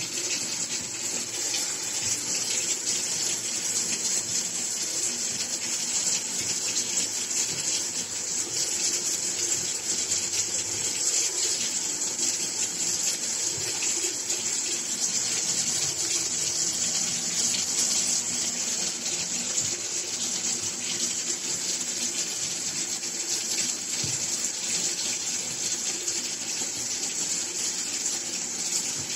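Steady, even rushing hiss, like water running.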